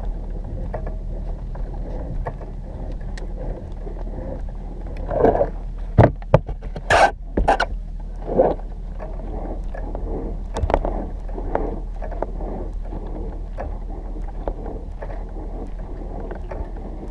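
Footsteps on dry dirt and the rustle of a suit while walking, over a steady low hum. A cluster of louder bumps and scrapes comes about five to eight seconds in.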